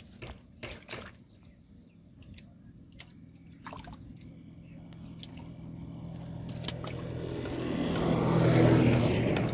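Small wet clicks and squelches of hands working in shallow mud and water. Under them runs a steady engine hum that grows louder over the last few seconds and is loudest near the end, like a motor vehicle passing close by.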